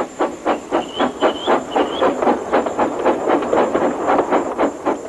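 Steam locomotive chuffing rapidly and evenly, about five puffs a second, as it pulls its train of coaches.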